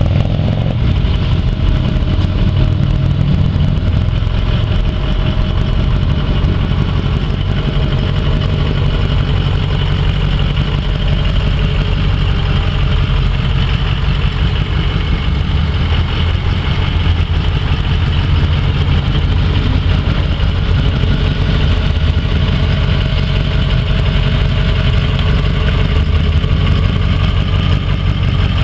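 2005 Ford F-250 pickup's engine running at a steady low drone as the truck drives slowly around a parking lot.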